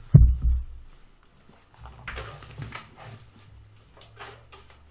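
A low thump just after the start, then scattered rustling and light knocks of things being handled and moved.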